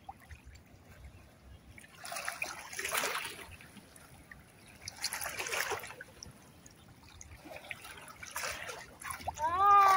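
Bare feet swishing and splashing in shallow seawater, in three short bouts. Near the end a person's voice calls out once, the loudest sound.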